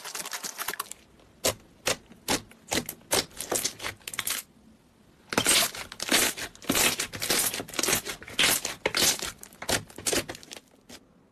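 Slime being squeezed, pressed and stretched by hand, making many irregular sticky clicks and pops. The clicking pauses briefly a little before halfway, then comes back denser.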